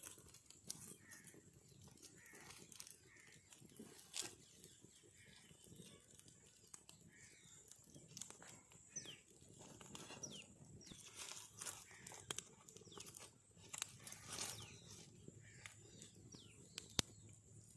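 Near silence: quiet outdoor ambience with scattered faint clicks and a few faint, short falling bird chirps.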